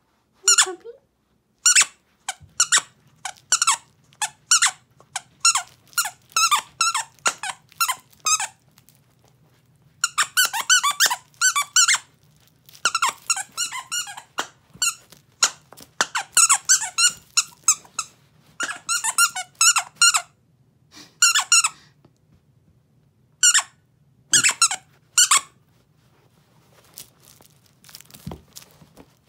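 A plush squeaky toy being chewed by a Dobermann puppy: rapid runs of high-pitched squeaks, coming in bursts with short pauses between them, dying away near the end.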